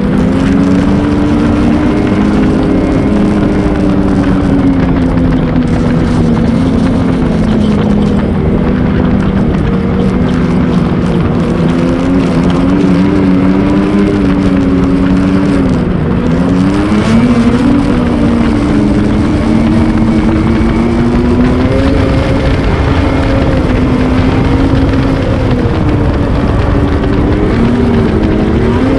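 Ski-Doo Renegade X-RS 850's two-stroke twin engine running under throttle along the trail, its pitch wavering with speed. The pitch drops sharply and climbs again about halfway through, and dips a few more times near the end as the throttle eases and comes back on.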